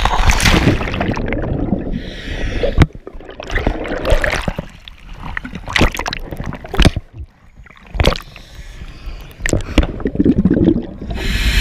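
Sea water splashing and sloshing over a hand-held camera as it dips in and out of the waves, with several sharp knocks of water against it. Near the end it is under the surface, amid gurgling bubbles.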